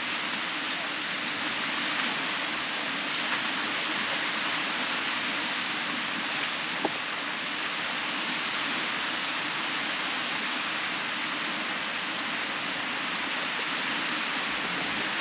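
Steady hiss of small waves breaking and washing over a shallow sandy beach.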